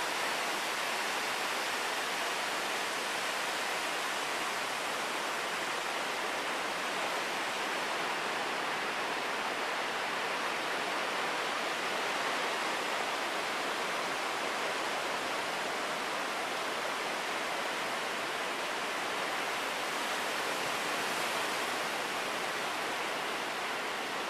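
Ocean surf as a steady, even wash of noise, with no separate wave breaks standing out.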